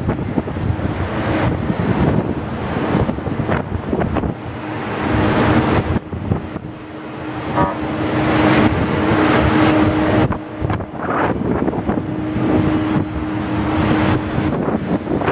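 Boeing 767-300's jet engines at taxi power, a steady tone under a rushing noise that swells and fades, with gusty wind buffeting the microphone.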